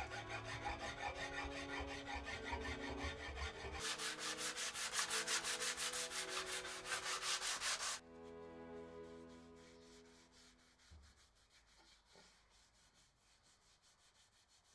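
Rapid rubbing strokes of hand-shaping on wood, over soft background music with held notes. The strokes start about four seconds in, stop suddenly about four seconds later, and the music then fades out, leaving a few faint knocks.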